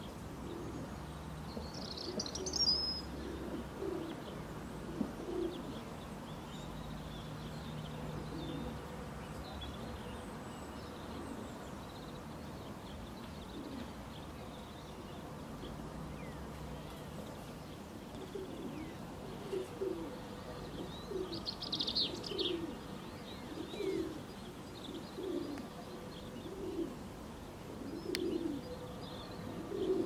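A dove cooing: a slow, repeated series of short low notes, most steady in the second half. A few brief high bird chirps come in twice, and a faint low hum runs under the first half.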